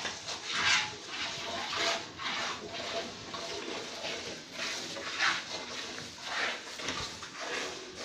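A cow being milked by hand: streams of milk squirting into a metal pail, about two squirts a second in a steady rhythm.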